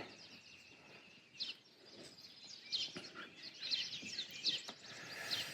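Small birds chirping, short high downward-sliding chirps repeated every second or so, with a few faint clicks.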